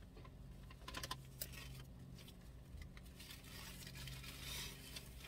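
Quiet handling noise over a low steady hum: a few light clicks about a second in, then soft rustling.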